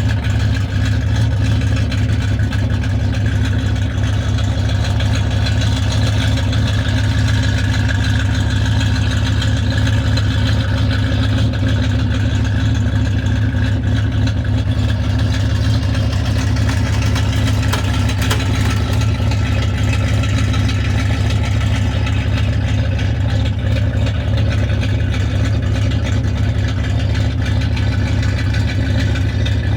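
A large vehicle engine idling steadily, with an even low hum that doesn't rise or fall.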